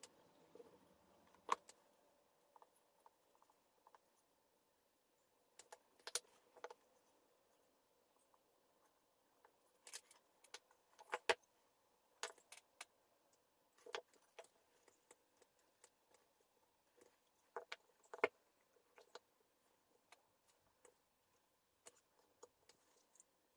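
Small wooden parts clicking and tapping against each other and on the worktable as glued frame panels are fitted together and pressed into a box. Scattered light knocks at irregular intervals, the sharpest about a second and a half in, around eleven seconds and around eighteen seconds.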